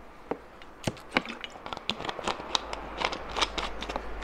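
Thin plastic water bottle crackling and popping as it is drunk from: a run of irregular sharp clicks.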